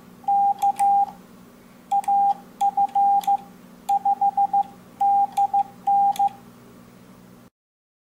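Morse code keyed on an MFJ-422D electronic keyer with its paddle: a single mid-pitched beep in quick dits and dahs, sent in about six short groups, with light clicks from the paddle levers. A low hum runs underneath, and everything cuts off suddenly near the end.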